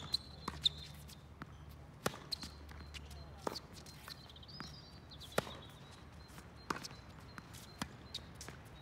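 Tennis ball struck back and forth by rackets and bouncing on the court during a rally: sharp single pops about every second or so.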